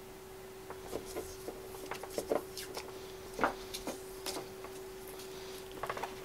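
Small scattered clicks and rustles of hands handling an electrical cord and its plug, over a faint steady hum.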